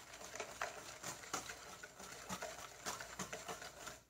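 Wire whisk beating a thin batter in a stainless steel bowl, faint light clicks of the wires against the metal, a few a second and irregular.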